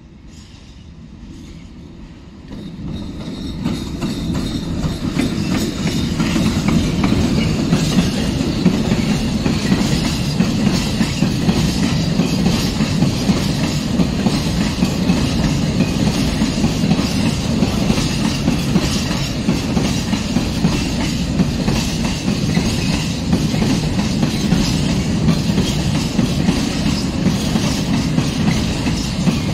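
Freight train hauled by a PKP ET22 electric locomotive running past, then its long rake of open wagons rolling by with a steady rumble and a rapid clickety-clack of wheels over the rails. The noise builds over the first few seconds as the locomotive draws level, then stays loud and even.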